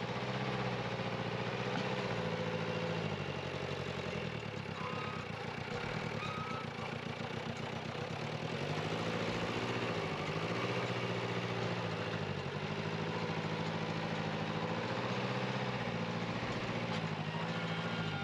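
Backhoe excavator's diesel engine running at work. Its pitch drops and climbs again every few seconds as the machine moves soil.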